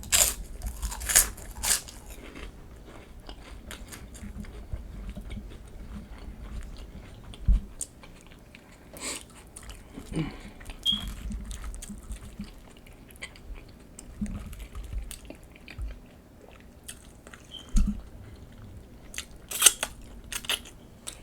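Close-up mukbang eating of nachos: crunchy bites into chips with chewing between, louder crunches near the start and again near the end.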